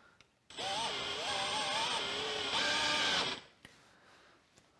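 Cordless drill power-tapping a thread into a hole in a steel plate. The motor runs for about three seconds, its pitch wavering, then stops. A few faint clicks follow near the end.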